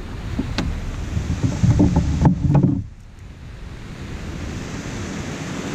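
Surf washing on the beach with wind on the microphone. For the first few seconds there are knocks and clatter of gear being handled in the kayak, which stop about three seconds in, leaving only the steady hiss of the surf.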